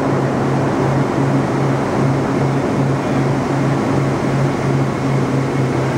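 Steady roar of jet engines and rushing air inside the cabin of a Boeing 727 parabolic-flight aircraft, with a low hum that swells and fades about one and a half times a second.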